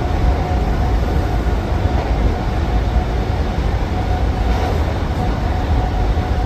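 Inside a British Rail Class 319 electric multiple unit running along the line: a steady, loud low rumble of the carriage and wheels on the track, with a constant whine held at one pitch above it.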